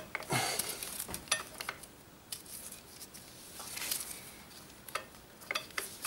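Scattered light metallic clicks and short scrapes of a motorcycle's rear brake pad and caliper being worked by hand, with the pad not coming free of the caliper.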